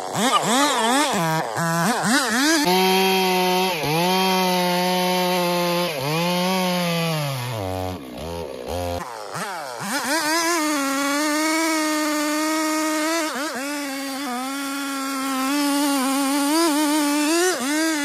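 Large two-stroke chainsaw cutting into a thick tree trunk, its engine pitch sagging under load. About eight seconds in it drops to a low idle, then revs back up and cuts steadily again.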